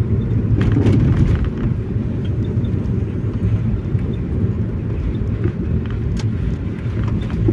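A moving car's steady low road and engine rumble, heard inside the cabin, with a few brief clicks about a second in and again near six seconds.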